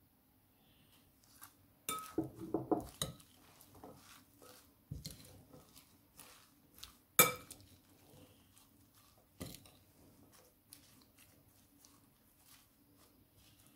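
Metal cutlery tossing salad leaves in a glass bowl, clinking now and then against the glass. A quick run of knocks comes about two seconds in, and the sharpest clink about seven seconds in.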